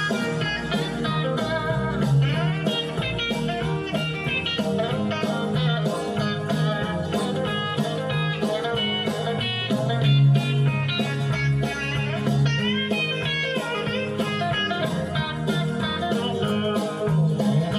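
Instrumental break of a country song: a lead guitar plays a solo with bending notes over bass and a steady beat, with no singing.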